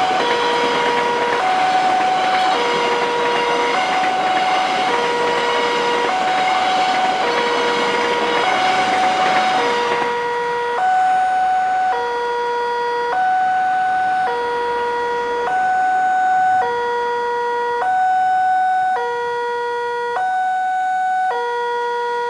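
Railroad level-crossing electronic alarm sounding a two-tone warning, a higher and a lower tone alternating about once a second. For the first ten seconds the rumble of passenger coaches passing over the crossing runs under it, then stops, and the alarm continues alone.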